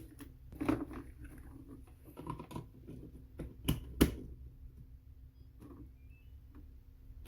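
Plastic clicks and knocks of handling a Cuckoo electric pressure rice cooker as its repaired power cord is plugged in, the loudest two sharp knocks coming close together about four seconds in. A few faint short high beeps follow, like an appliance coming on.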